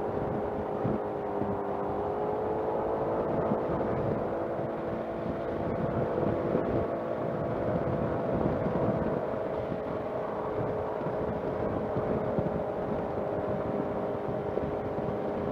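Suzuki Burgman 200 scooter's single-cylinder engine running at a steady cruising speed: a steady drone of nearly constant pitch over road and wind noise.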